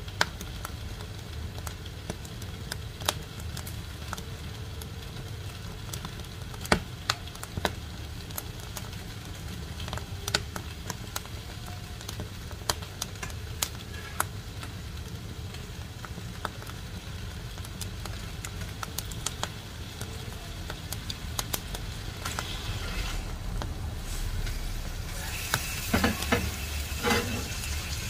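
Wood fire crackling in the firebox of a wood-burning cook stove: sharp irregular pops and snaps of burning split wood over a low steady rumble, the crackles coming thicker near the end.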